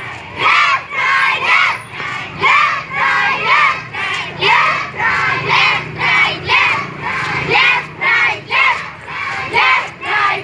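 A group of children chanting in unison: short, high shouted phrases repeated in a steady rhythm, about two a second, as in a marching chant.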